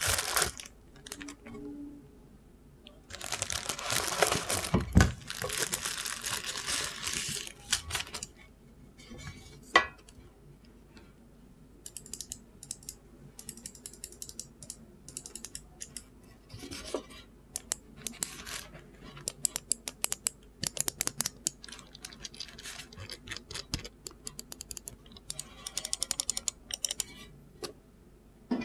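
Packaging rustling and crinkling for several seconds as the mouse is unboxed, then long runs of quick, sharp plastic clicks and taps.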